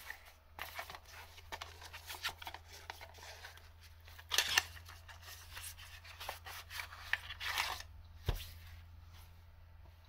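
Cardboard and plastic packaging of a Shimano EW-SD50 Di2 electric wire being opened by gloved hands: rustling, crinkling and scraping as the insert slides out of the box. The scraping is loudest at about four and a half and again at about seven and a half seconds in, and there is a sharp click a little after eight seconds.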